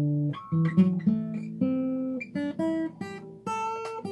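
Acoustic guitar playing single notes one at a time, climbing up an A minor pentatonic scale.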